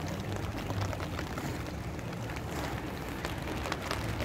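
Heavy rain falling, a steady hiss with many sharp drop ticks close to the microphone.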